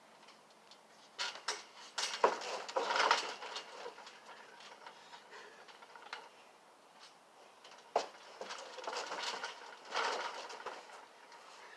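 Bouncing and landing on a backyard trampoline, the mat thudding and its metal springs and frame rattling. There are a few sharp knocks, near the start, about two seconds in and about eight seconds in, and two longer stretches of rattling clatter, one a few seconds in and one near the end.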